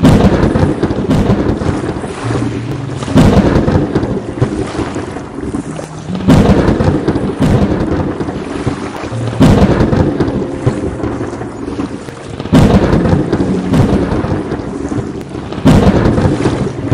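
Thunderstorm: heavy rain hiss with thunder cracking in loudly, then rumbling away, again and again at an even pace of about one crash every three seconds.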